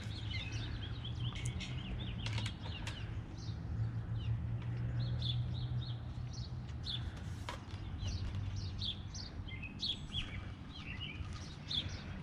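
Small birds chirping and twittering over and over, over a low steady hum that fades after the first half, with a few sharp clicks.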